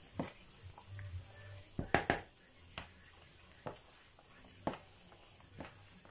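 Crab-stick salad being tossed by hand in a large plastic bowl: a series of short, sharp taps and knocks, roughly one a second, with the loudest pair about two seconds in.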